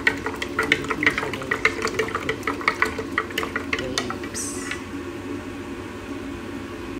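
Wooden stirrer swirling juice in a glass pitcher, knocking against the glass about three or four times a second with the sloshing of the liquid. The knocking stops about four and a half seconds in.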